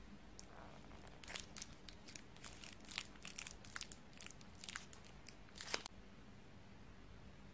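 Pleated paper cupcake liner crinkling and crackling as a hand grips a chiffon cupcake and pulls it out of the paper: a quick run of small crackles, with a last, louder one just before six seconds in.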